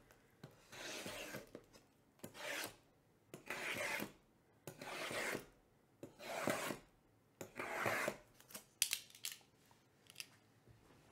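A blade slitting the plastic shrink wrap on stacked trading-card hobby boxes: about six rasping strokes, each under a second long and about a second apart, with a few light clicks near the end.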